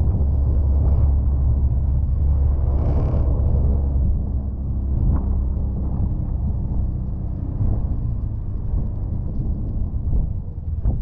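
Can-Am Defender side-by-side's engine running steadily under load while plowing snow, with a short hiss about three seconds in and a few knocks; the engine note drops somewhat after about four seconds.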